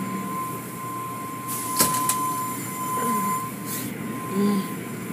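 Automatic car wash tunnel machinery running, heard from inside a car: a steady hum under a constant high whine, with brief hissing bursts and a sharp knock about two seconds in.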